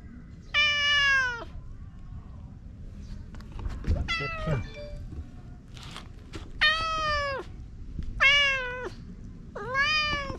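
Domestic cat meowing five times, each a short call falling slightly in pitch, spaced about one and a half to three seconds apart. The second meow, about four seconds in, is fainter, with low bumping noise beneath it.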